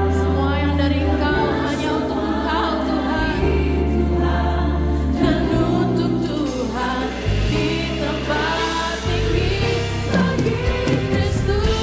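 A live band playing a worship song, with several voices singing over a drum kit and bass guitar; cymbal and drum hits fall steadily through the music.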